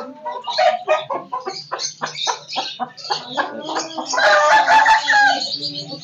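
Chickens clucking in a quick run of short calls, then a rooster crows once about four seconds in, the loudest sound, lasting a little over a second.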